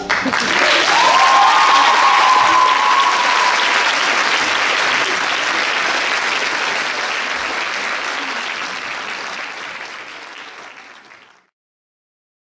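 Audience applauding, with one long high call from the crowd about a second in. The applause slowly fades, then cuts off suddenly near the end.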